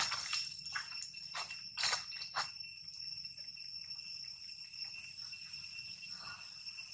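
Steady, high-pitched drone of insects in chorus, held at a few fixed pitches. Over it come several short crackles and rustles of dry leaf litter in the first two or three seconds.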